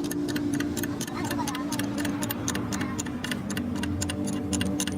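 Tractor diesel engine running at a steady speed, a hum with a rapid, even ticking over it.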